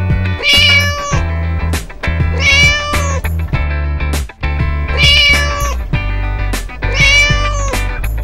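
A cat meowing four times, about two seconds apart, each call rising and then falling in pitch, over upbeat children's background music with a steady bass line.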